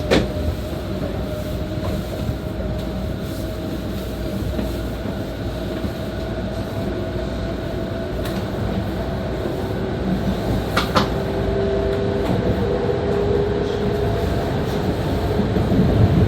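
E2 series Shinkansen running sound heard from the car's vestibule deck: a steady rumble of wheels on rail with a faint steady whine from the Mitsubishi IGBT-inverter traction motors. A sharp tick comes about 11 seconds in, and the running noise grows a little louder near the end.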